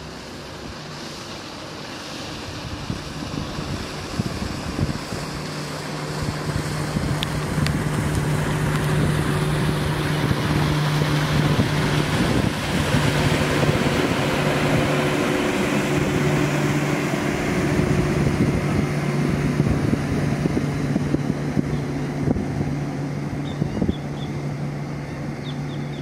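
Wind noise on the microphone, with a steady engine hum that comes in about five seconds in and holds.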